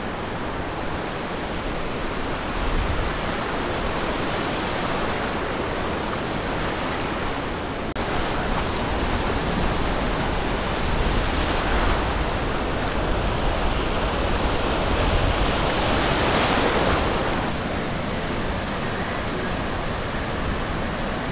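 Gulf surf breaking and washing up the beach, a steady rushing wash that swells louder a couple of times as waves come in.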